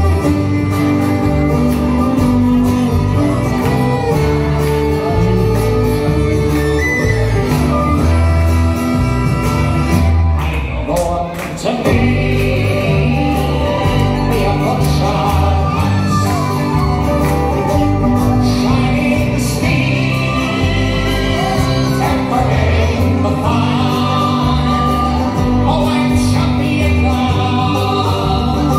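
Live folk band playing a song with singing, on acoustic and electric guitars, banjo, double bass, fiddle and tin whistle. The music dips briefly about eleven seconds in.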